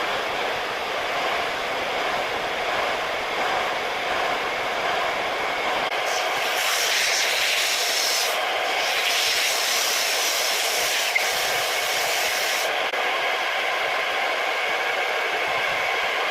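Wood lathe running steadily with a motor hum; from about six seconds in, for about six seconds, a louder high hiss of a tool working the spinning wood is added.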